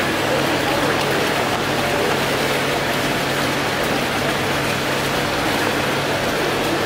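Fountain jet splashing steadily into its pool, a continuous rush of falling water, with a steady low hum underneath.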